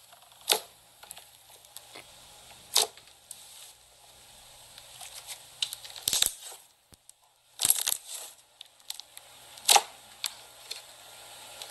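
Thick slime being pressed and squeezed by hands, giving off several separate bursts of sharp crackling pops and clicks.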